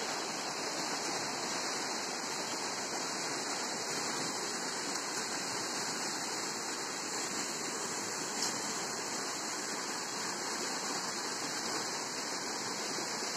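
Fast, shallow river rushing over a stony bed in small rapids: a steady, unbroken rushing noise.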